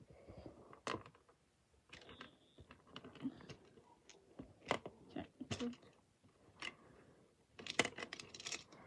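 Faint, irregular clicks, taps and light rustling of small hard objects being handled, thickening into a quick run of clicks near the end.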